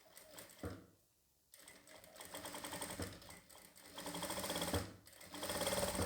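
Jack F4 industrial single-needle lockstitch sewing machine stitching a scrap of fabric in three short runs, starting about a second and a half in, with a fast even needle rhythm. A brief knock comes before it starts.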